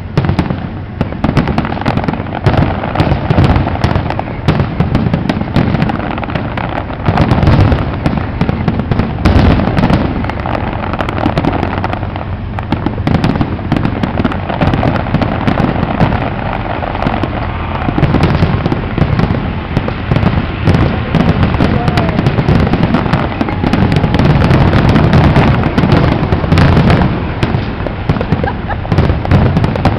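Professional fireworks display finale: aerial shells bursting in rapid, overlapping succession, a dense barrage of booms with no pause.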